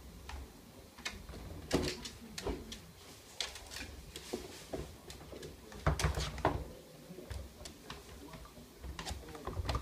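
Miniature dachshund puppies knocking a treat-dispensing puzzle toy around: scattered knocks, clicks and rustles, loudest about two seconds and six seconds in.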